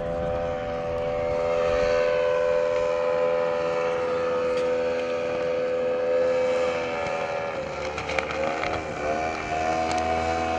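Radio-controlled model airplane's engine and propeller droning steadily while it tows a long flag; about eight seconds in the pitch dips and wavers, then settles back.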